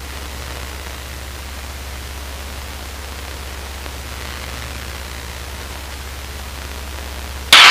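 Steady hiss with a low, even hum from the Luscombe 8A's headset intercom feed while no one is transmitting, its squelch closed so the engine drone comes through only faintly.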